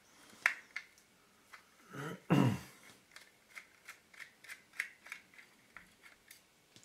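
Small sharp clicks and ticks of a screwdriver and small metal and plastic parts being handled during disassembly of a DSLR camera, with one louder scrape that falls in pitch about two seconds in.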